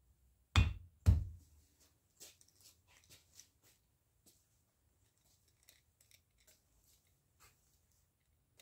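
Two loud knocks about half a second and a second in, then a run of small metallic clicks and scrapes as a hand screwdriver turns a small machine screw into an aluminium block.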